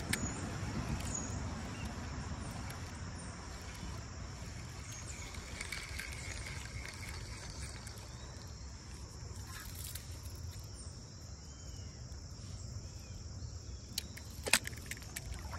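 Steady high-pitched insect chorus over a low, even rush of background noise, with a few sharp clicks, the loudest near the end.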